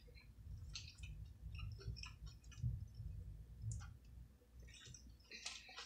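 Chewing of a mouthful of burger: faint, irregular wet mouth clicks, several a second, growing a little louder near the end.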